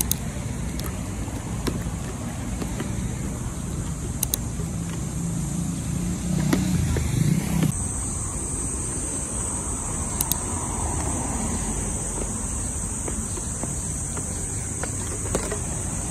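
Road traffic heard from the sidewalk: cars running along the street in a steady rumble. A steady high hiss lies over it and shifts abruptly about eight seconds in.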